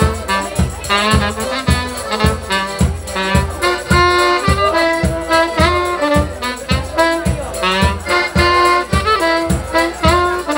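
Instrumental break of a Polish folk band: saxophone and accordion playing the melody together over a steady drum beat, with no singing.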